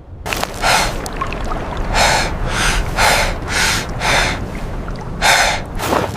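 A person panting hard, quick heavy gasping breaths about two a second, out of breath from exertion. A steady low rumble runs underneath.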